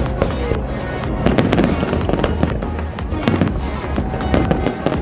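Fireworks display going off: many rapid bangs and crackles in close succession, heard over music with a steady bass.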